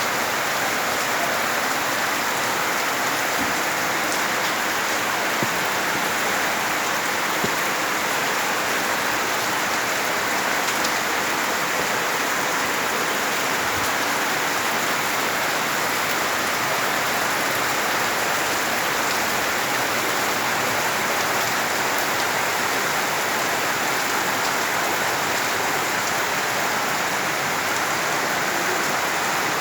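Heavy rain pouring down, a dense, steady hiss of rainfall that holds at one level throughout.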